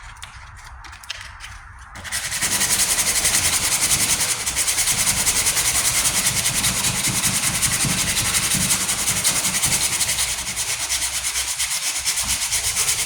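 Sanding block with 80-grit paper rasping steadily over the primed steel of a tailgate patch, taking out 40-grit scratches. It starts about two seconds in after a few light clicks and keeps a fast, even stroke.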